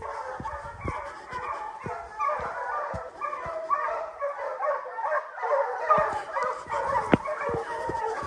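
A pack of bear hounds baying on a running bear, many voices overlapping in a dense, continuous chorus.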